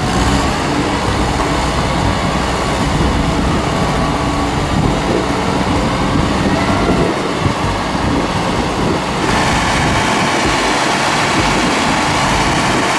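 Motor vehicle engine running, with steady rumble and noise as the truck is towed out of the mud; the sound changes abruptly about nine seconds in.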